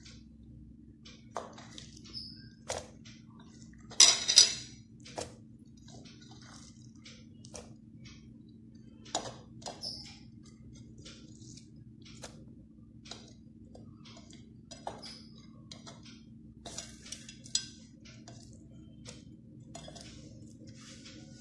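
Scattered clinks and knocks of utensils against a stainless-steel vessel as chopped vegetables are dropped in. The loudest are a pair of knocks about four seconds in. A steady low hum runs underneath.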